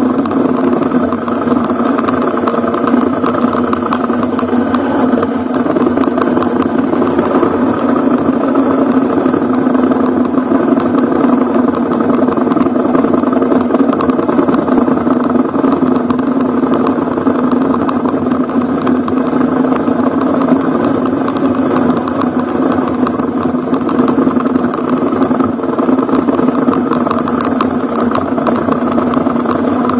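Ducati Hypermotard's V-twin engine running steadily while the motorcycle is ridden along a dirt forest track, its pitch holding nearly even throughout.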